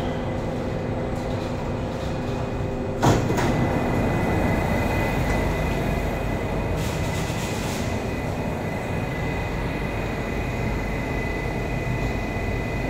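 Kawasaki-CRRC Qingdao Sifang CT251 metro train standing at the platform with its doors open, its equipment giving a steady hum. A single sharp knock comes about three seconds in, followed by a steady high whine.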